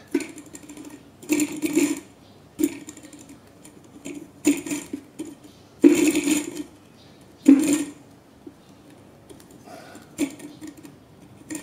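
Small glass-cylinder Stirling engine driving a two-blade propeller, running unevenly: its mechanism clatters in about seven short surges separated by quieter stretches, the strongest about six and seven and a half seconds in. The engine speeds up and slows down by itself, which the owner puts down to the flame wavering in the porch draft.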